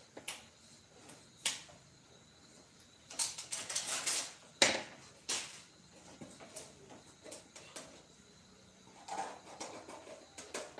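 Hand work on a wooden workpiece: scattered light taps and knocks, with a short burst of rapid scraping about three seconds in, then a sharp knock, the loudest sound, just after it.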